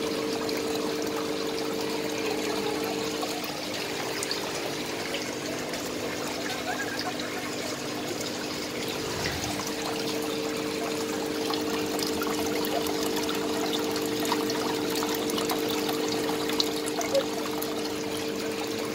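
Water trickling and pouring steadily into a fish-spa tank, the sound of the tank's water circulation, with a steady hum running under it.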